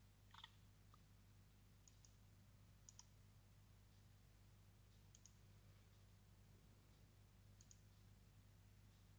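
Near silence over a low steady hum, with faint computer mouse clicks every second or two, several as a quick pair of ticks.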